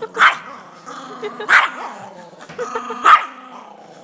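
Tiny Yorkshire terrier barking sharply three times, about a second and a half apart, with growling between the barks. It is guarding food.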